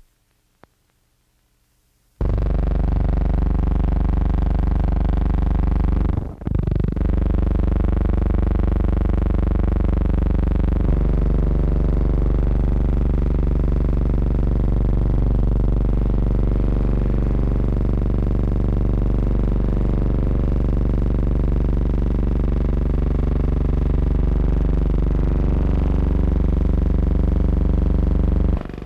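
A loud, steady droning hum with many overtones starts about two seconds in. It drops out briefly around six seconds in and stops just before the end.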